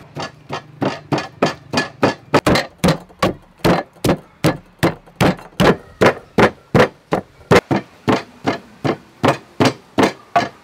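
Wooden pestle pounding garlic and galangal in a mortar: steady, even strikes, about two and a half a second.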